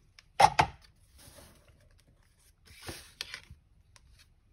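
Card stock being handled and pressed onto a card on a tabletop: two sharp taps about half a second in, then paper sliding and rubbing, with another brush of paper and two lighter taps near three seconds in.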